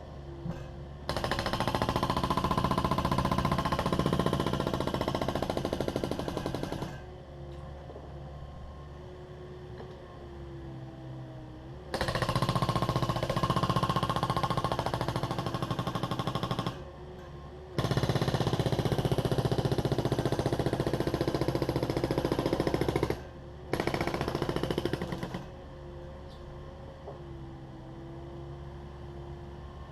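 Hydraulic breaker on a Takeuchi TB260 excavator hammering concrete in four long bursts of rapid blows, each several seconds long. Between the bursts the excavator's diesel engine runs steadily.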